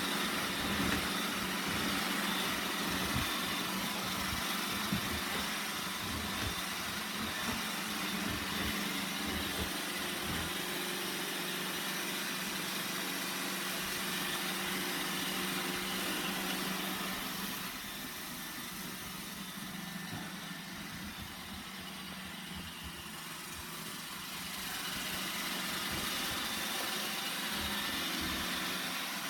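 iRobot Roomba 960 robot vacuum running: a steady whirring hum of its motors with several held tones. It becomes quieter for several seconds past the middle, then returns to its earlier level.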